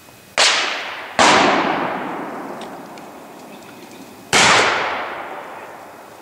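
Three gunshots, the first two less than a second apart and the third about three seconds later, each trailing off in a long echo.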